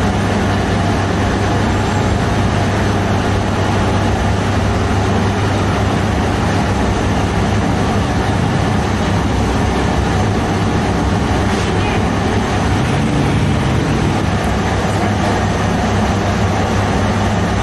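Steady mechanical drone of bakery machinery: a constant low hum under an even rushing noise that does not change.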